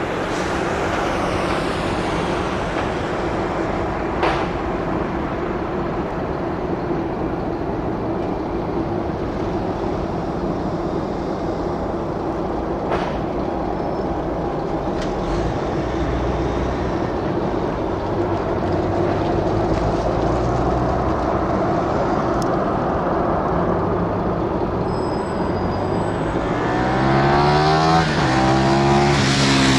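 Airbus A320 jet engines running at taxi power: a steady rumble and whine with a held tone, growing louder near the end as the airliner taxis closer.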